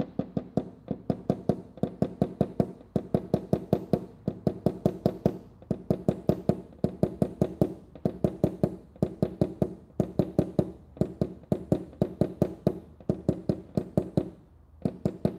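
Paintless dent repair tap-down tool with a hard tip being tapped on a car body panel in quick, steady runs of about five taps a second, pausing briefly near the end. The tapping knocks down the high spots left by glue pulling, levelling the repair.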